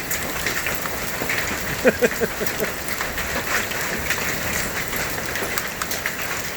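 Marble-sized hail and heavy rain pelting down in a dense clatter of sharp impacts over a steady hiss, with a brief cluster of louder, ringing knocks about two seconds in.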